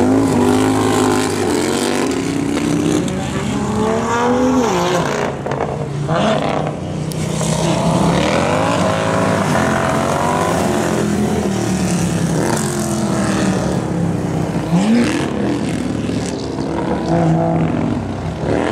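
Several big-twin bagger motorcycles racing in a pack, a BMW R18 boxer twin among Harley-Davidson and Indian V-twins. The engines rev up and fall off again and again as the riders accelerate and shut off through the corners.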